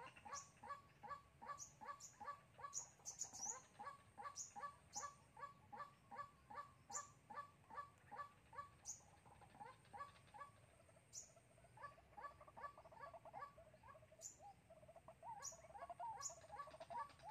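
White-breasted waterhen calling faintly: a long run of evenly repeated notes, about three a second, the decoy bird's call used to lure wild waterhens to a trap. Short high chirps from another small bird come now and then.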